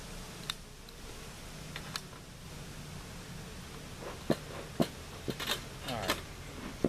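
A series of sharp clicks and knocks from a bee smoker being handled and relit, sparse at first and coming thick and fast in the second half, with a short squeak near the end, over a faint steady low hum.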